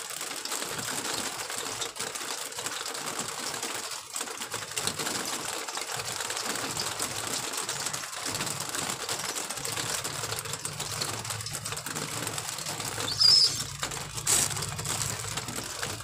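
Racing homer pigeon handled close to the microphone: steady rustling and crackling of feathers and fingers. About three-quarters of the way through comes a brief, louder flurry of wing flaps.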